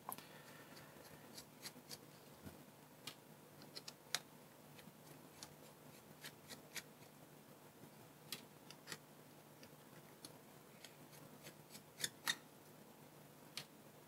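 Faint, irregular small clicks and ticks of a precision screwdriver turning tiny Torx screws out of a GoPro Hero5 Session. The sharpest are a close pair about twelve seconds in.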